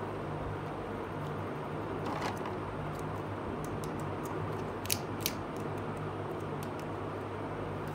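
Small plastic toy kitchen pieces being handled and set down: a few light clicks, with two sharper clicks close together about five seconds in, over a steady low background hum and hiss.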